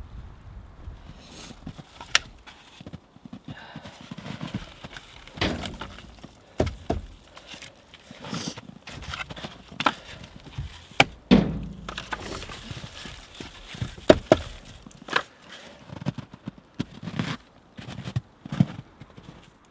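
Split firewood being handled and set down: irregular wooden knocks and thunks, a dozen or so, with a few sharper cracks.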